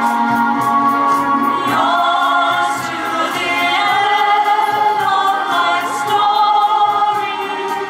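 A woman singing into a microphone over musical accompaniment, holding long notes with vibrato.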